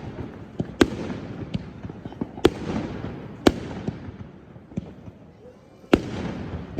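Fireworks and firecrackers going off: sharp bangs about once a second, four of them loudest, over a continuous crackle and rumble of further explosions. The rumble thins out briefly before one more loud bang near the end.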